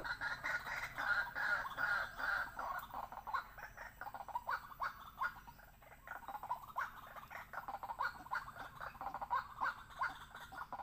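White-breasted waterhen calling: a fast, continuous run of short repeated notes, several a second, with a brief lull about halfway through.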